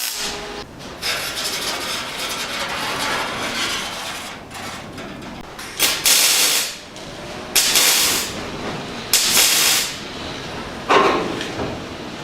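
Welder tacking a steel repair panel into a car's rear wheel-arch tub: a longer stretch of hissing welding near the start, then four short welding bursts of under a second each, about a second and a half apart.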